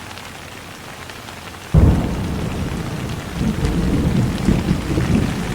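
Steady rain hiss; a little under two seconds in, thunder cracks suddenly and rumbles low and loud through the rest.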